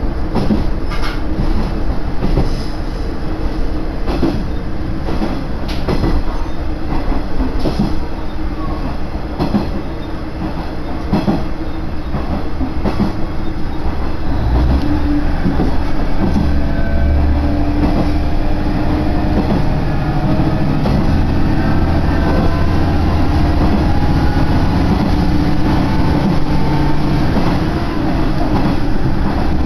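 Running noise of a local railcar heard from inside the carriage. In the first half the wheels click over rail joints. From about halfway the drive's hum grows louder, with a tone rising slowly in pitch as the train picks up speed.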